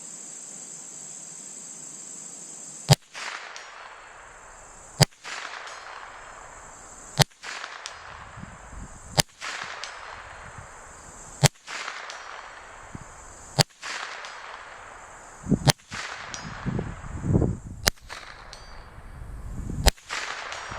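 Marlin .22 LR rifle firing CCI Mini Mag rounds: nine sharp cracks, about two seconds apart, each with a short trailing echo. A steady high cricket chorus runs underneath.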